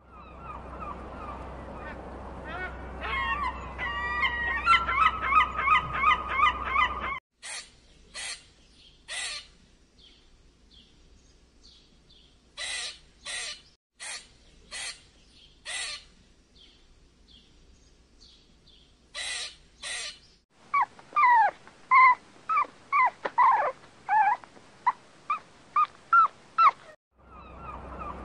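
Bird and animal calls in three stretches that change abruptly. First a run of repeated wavering calls over a low hum. Then short, sharp single calls about a second apart with quiet between. Then a quick run of chirping calls.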